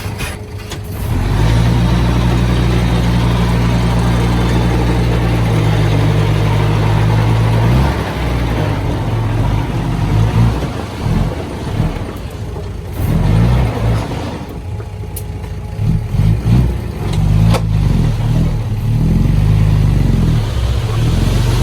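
Diesel engine of heavy earthmoving machinery running loud and steady for several seconds. About a third of the way in it begins to rev up and down repeatedly, as under changing load.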